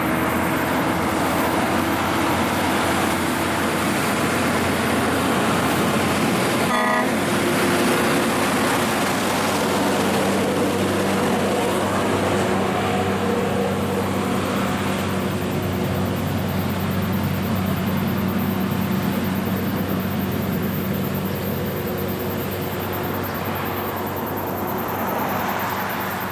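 Kenworth logging truck's diesel engine pulling a loaded log trailer uphill, running steadily as it passes, with a brief horn toot about seven seconds in. The engine fades slightly near the end as the truck moves away.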